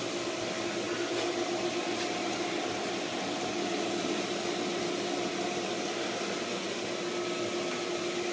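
Pool equipment pump motor running steadily on high speed, a constant hum with a couple of steady tones over a rushing noise, as it pushes water through the heater's plumbing.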